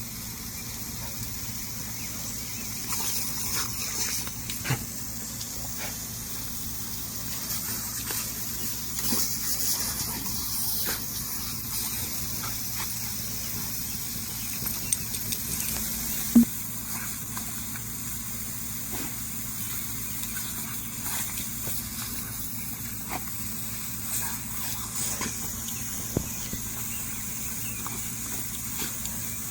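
Lawn sprinkler spraying water with a steady hiss, broken by scattered small clicks and one sharp knock about halfway through.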